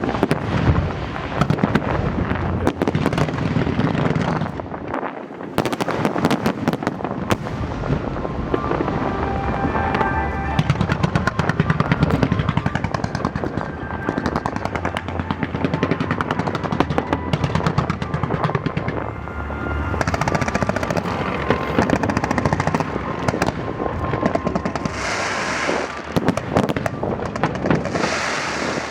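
Fireworks display: a dense run of rapid crackling and banging, with music playing along with it.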